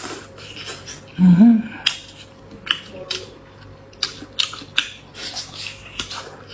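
Close-up eating sounds of seafood: a run of crisp clicks and crackles from cutting and chewing, with a short voiced 'mm' from the eater about a second in.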